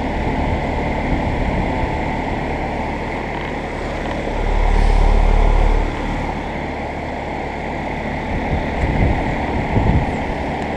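2008 Comfortmaker central air-conditioner condensing unit running, its fan and compressor giving a steady hum with a hiss of moving air. A louder low rumble comes in for about a second and a half midway, and a few low thumps come near the end.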